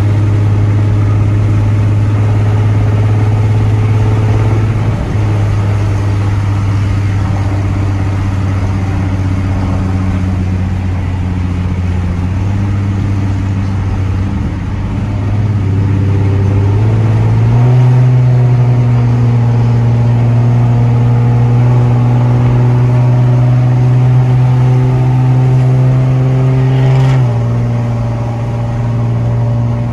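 Straight-piped 2011 Infiniti M37x's 3.7-litre V6 (catless downpipes, no muffler or resonator), heard from inside the cabin while driving: a loud, steady exhaust note. Its pitch steps up a little past halfway, then drops back near the end with a brief click.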